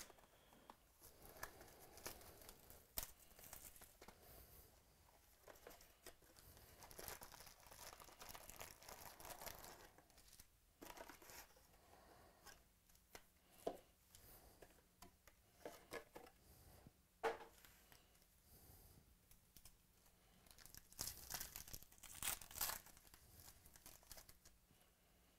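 Soft tearing and crinkling of card-pack foil wrappers and box cardboard being handled and opened, coming in spells with a few sharper crackles, busiest near the end.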